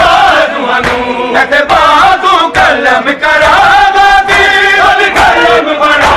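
A crowd of men chanting a noha together in a loud, massed chorus. The chant is marked by a steady beat of slaps from chest-beating (matam).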